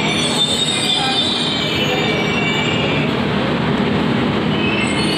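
Hyderabad Metro train moving alongside the platform: a steady running noise with high, shifting squealing tones over it.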